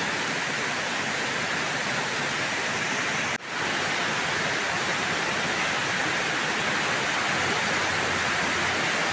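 Heavy tropical rain falling, a steady, dense hiss with a brief drop about three and a half seconds in.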